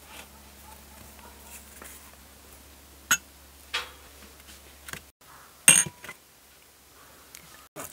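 A few sharp clinks of dishes and utensils being handled, the loudest with a brief ring about three quarters of the way through.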